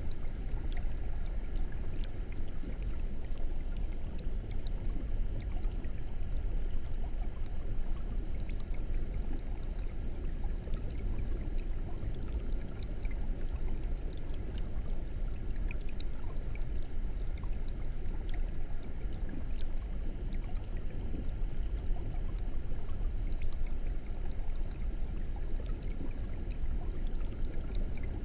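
Fish-tank water bubbling steadily, with a low rumble underneath and scattered small pops.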